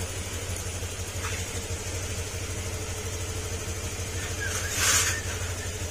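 Honda Click 125 scooter's single-cylinder engine idling steadily on a newly fitted ECU, with a brief hiss about five seconds in.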